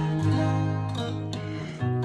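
Acoustic guitar playing an instrumental introduction: chords struck and left to ring over sustained bass notes, with a new chord about two-thirds through and another just before the end.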